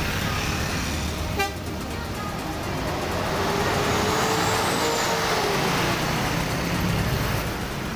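A coach bus drives past close by in street traffic, its engine note rising and then falling as it passes. A short horn beep sounds about a second and a half in.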